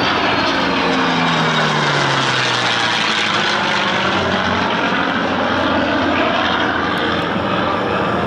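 A P-51 Mustang's V-12 piston engine and an F-16's jet engine flying past together as a steady roar. The propeller engine's note drops in pitch over the first few seconds as the pair pass and head away.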